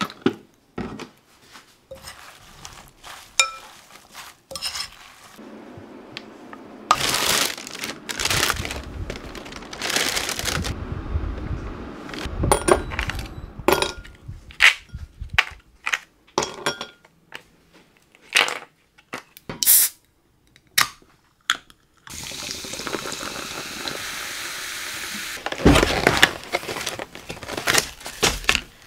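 Close-up kitchen and table handling sounds: a metal spoon clinking against a glass bowl of salad, ice cubes knocked from a plastic tray into a glass, and many short clicks and knocks. Near the end, liquid is poured steadily for a few seconds.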